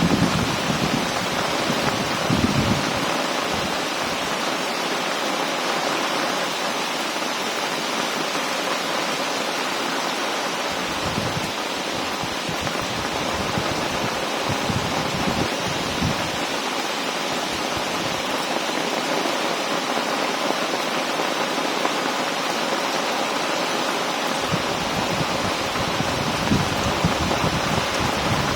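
Heavy rain pouring down in a storm, a loud, steady hiss. A few low rumbles come and go near the start, in the middle and near the end.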